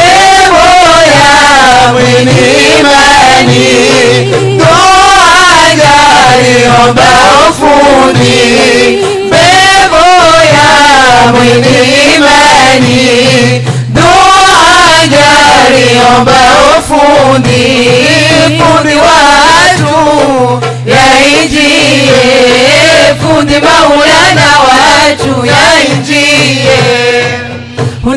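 Islamic devotional chant sung by male and female voices through microphones and a sound system, a winding melody in long drawn-out phrases. A low steady drone sounds underneath at times.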